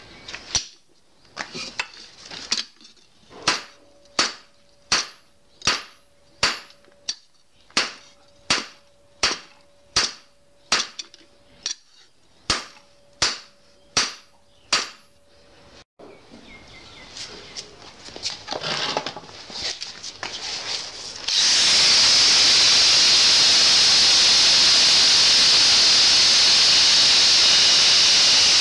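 Hand hammer forging a red-hot 52100 bearing-steel blade on a steel anvil block: about twenty blows, a little over one a second, each a sharp clang with a ringing note under them. After a quieter pause, an angle grinder starts cutting the steel about three-quarters of the way in and runs as a loud, steady hiss.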